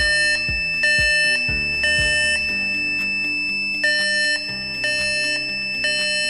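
Piezo buzzer of an Arduino flame-sensor fire alarm beeping in half-second pulses about once a second, sounding because the sensor has detected a flame. Music with a steady beat plays underneath.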